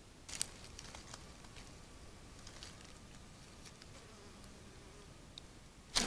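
An agouti's footsteps on dry leaf litter: sparse, irregular crackles and rustles of leaves as it walks and forages.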